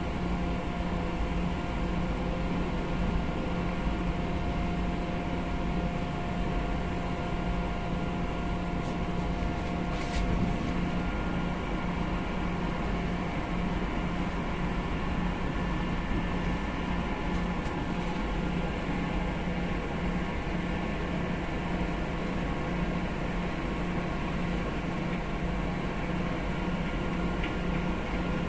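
Steady drone of a cargo ship's engine and machinery, a hum with several held tones that does not change. A brief click about ten seconds in.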